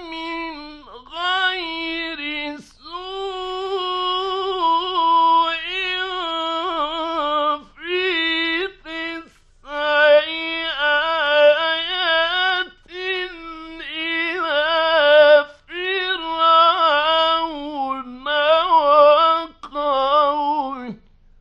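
A man reciting the Quran in the melodic mujawwad style: long, high held notes with wavering ornaments, in phrases separated by short breaks. The voice stops shortly before the end.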